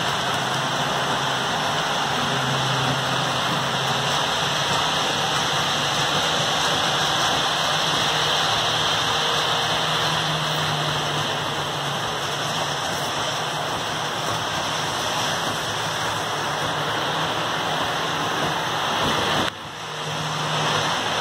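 Several HO scale model trains running on the layout: a steady whir and rolling hiss of small motors and metal wheels on the track, with a faint low hum. The sound drops out briefly near the end and comes back.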